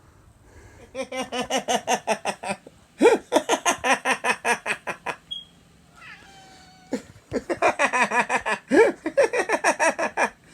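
A domestic cat calling in four rapid runs of short, repeated cries, about six or seven a second, with brief pauses between the runs.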